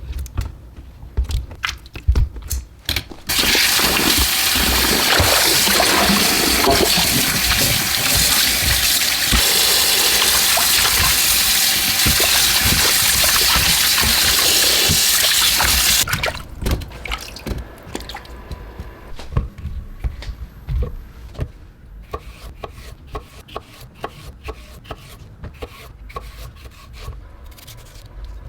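Water running in a steady stream for about thirteen seconds. It starts about three seconds in and cuts off suddenly, with light knocks and handling clatter before and after.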